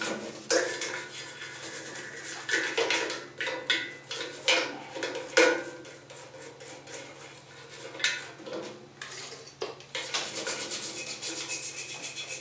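Toothbrush wet with paint thinner scrubbing the bolts and roller brackets on the print arm of a manual rotary screen-printing press, to lift spray-tack residue and lint. Irregular scratchy brushing strokes, with the brush now and then clacking against the metal parts, loudest about five seconds in.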